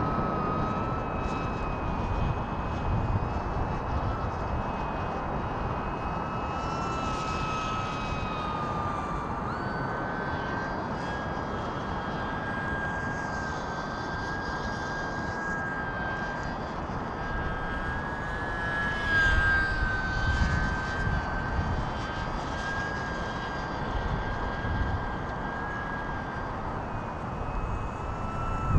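Electric motor and propeller of an E-flite UMX Pitts S-1S ultra-micro RC biplane whining in flight. The pitch steps up about a third of the way in as the throttle is raised, with gusty wind rumbling on the microphone.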